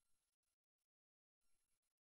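Near silence: only a very faint hiss, which drops out completely for about half a second near the middle.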